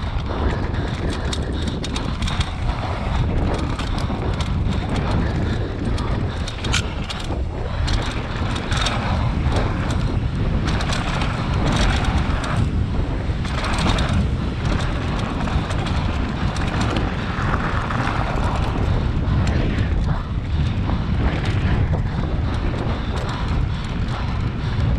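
Enduro motorcycle ridden over rough terrain, its engine running under heavy wind buffeting on the camera microphone, with frequent knocks and clatter throughout.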